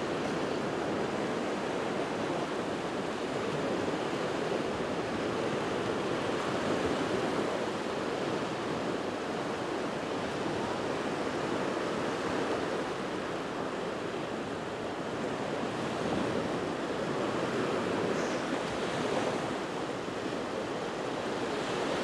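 Small Black Sea waves washing up and draining back over a flat sandy beach: a steady surf hiss that swells and eases gently.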